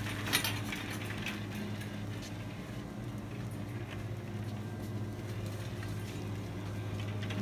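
Steady low hum of store background noise, with a single sharp click shortly after the start.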